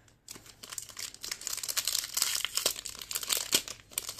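Foil wrapper of a 2021 NRL Priority trading card pack crinkling as it is handled and torn open. The crackle starts about a third of a second in and grows louder from about halfway.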